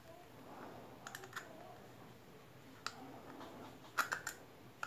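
Small sharp metal clicks as a screwdriver works the worm-drive screw of a stainless hose clamp on a silicone hose coupler: a few quick clicks about a second in, a single one near three seconds, and a louder cluster around four seconds.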